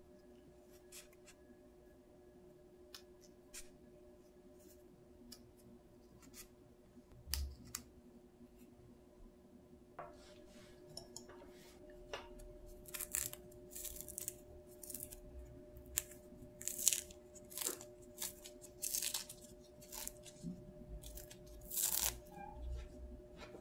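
Mandarin orange peel being torn off by hand: a run of crisp ripping and rustling from about halfway, loudest near the end. Before it, only a few faint clicks and a soft thump as cherry tomatoes are pushed onto a wooden skewer.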